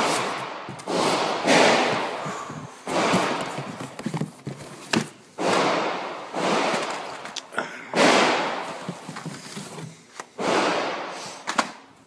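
Handling noise: a series of rustling, brushing swells, each starting suddenly and fading within about a second.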